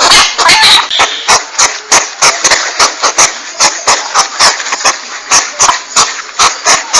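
Hedgehog huffing and hissing in a rapid, uneven run of harsh puffs, about four a second.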